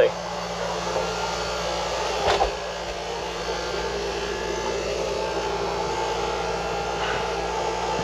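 Mabru SC05DC 12 V DC cabin air conditioner running: a steady rush of air over a low steady hum, with a brief knock about two seconds in.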